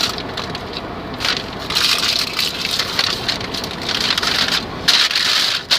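Fast-food paper packaging rustling and crumpling in uneven spurts, over the low rumble of car road noise inside the cabin. The rumble falls away about five seconds in.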